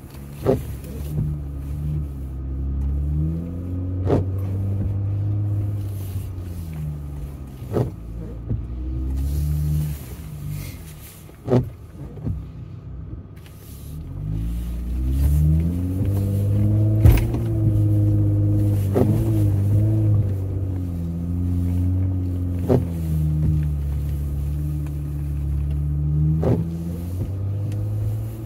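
Jeep Gladiator's engine heard from inside the cab while driving an off-road trail, its pitch rising and falling with the throttle. About eight sharp clicks or knocks cut in at irregular intervals.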